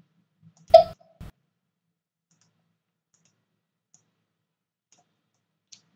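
Computer mouse clicks: one loud click about three-quarters of a second in, a softer one half a second later, and a faint tick near the end.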